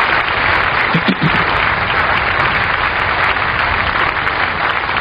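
A very large crowd applauding: dense, even clapping from thousands of people, holding steady throughout.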